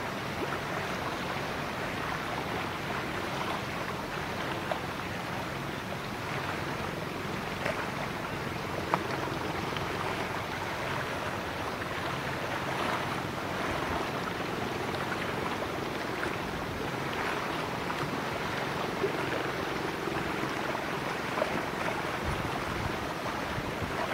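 Steady river ambience: wind and water wash with the low hum of a boat engine running, broken by a few faint sharp clicks.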